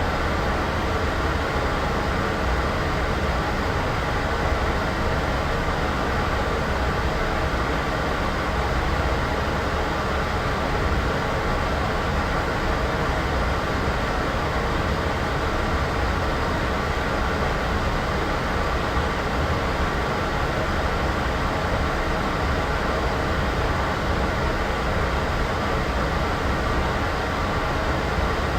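Steady, unchanging noise track: a low rumble under an even hiss, with no events or changes.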